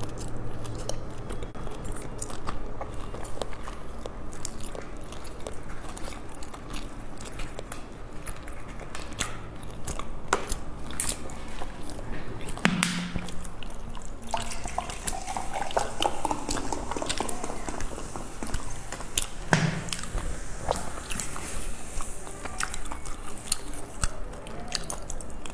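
A person chewing a soft pastry filled with salted egg yolk and meat floss, close to the microphone, with many small wet mouth clicks and smacks. Two brief, louder low sounds stand out about halfway and three-quarters through.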